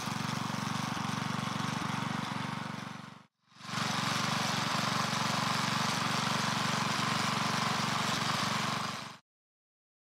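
Small gas-engine garden tiller running steadily as it churns up soil. The sound dips out about three seconds in, comes back half a second later, and cuts off suddenly about nine seconds in.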